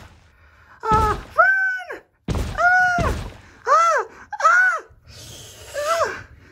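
A person's high-pitched voice giving about half a dozen short, wordless cries that rise and fall in pitch, with two dull thuds in the first few seconds.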